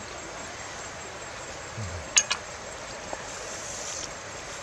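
Steady rush of flowing stream water, with two sharp clicks close together about two seconds in and a brief low voice sound just before them.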